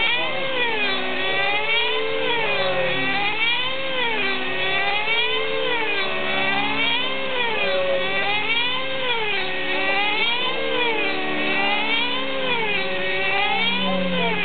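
Radio-controlled aerobatic model aeroplane flying overhead, its motor and propeller note rising and falling in pitch in a regular wave about every one and a half to two seconds.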